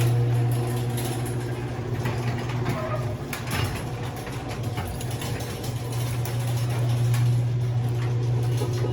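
Vehicle engine idling with a steady low hum, with a few light knocks and clatter over it about three to four seconds in.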